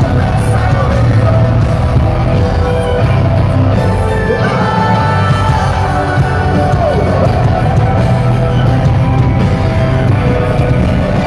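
Live rock band playing loud through a concert PA, heard from within the crowd: bass, drums and a male lead vocal holding and sliding notes over the band.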